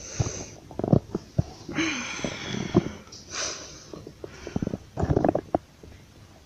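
Rustling and knocks close to a phone's microphone as it is handled, in several short bursts with clusters of sharp clicks.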